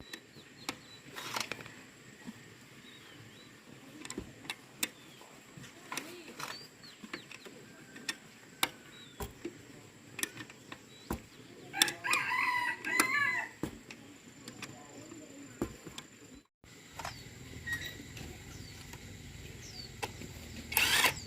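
A rooster crows once, a wavering call of about a second and a half, about twelve seconds in. Scattered sharp clicks and knocks are heard around it.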